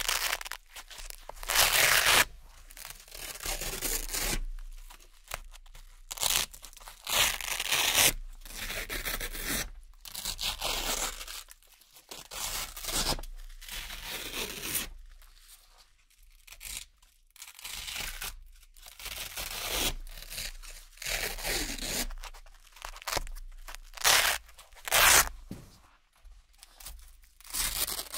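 Circular hook-and-loop (Velcro) patches being peeled off a Velcro board one after another: a string of crunchy ripping tears, each under a second or so long, with short pauses between.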